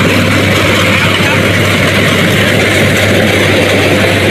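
Rice combine harvester engine running steadily, a constant low hum under a dense mechanical noise.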